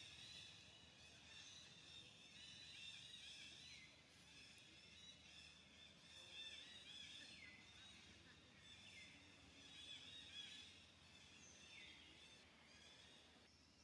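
Faint outdoor ambience: a dense, high-pitched chirping chorus, with a call falling in pitch every couple of seconds.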